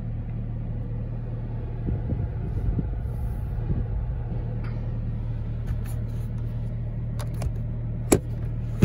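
Supercharged 6.2 L V8 of a 2019 Chevrolet Camaro ZL1 idling steadily, a low even hum heard from inside the cabin. A few sharp clicks near the end as the sun visor's vanity mirror cover is flipped open.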